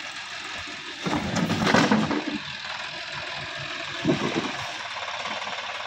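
Sonalika DI-50 RX tractor's diesel engine running under load. A louder rush of noise comes about a second in and lasts just over a second, and a shorter one follows near the fourth second.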